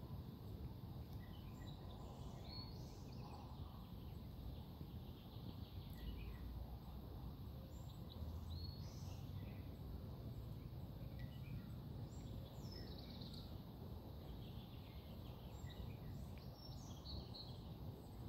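Scattered short bird chirps and calls, faint, over a low steady background rumble.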